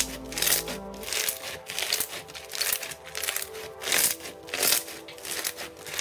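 Foam-bead slime (floam) crackling and crunching as hands squeeze and knead it, about two crunches a second, over background music with held notes.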